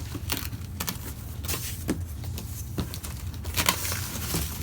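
Cardboard box and packaging being handled and opened: scattered crinkles, scrapes and taps over a low steady hum.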